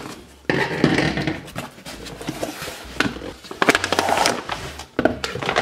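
Cardboard shipping box being opened, its flaps scraping and thumping, then plastic-wrapped ration pouches rustling and crinkling as they are handled. It starts suddenly about half a second in.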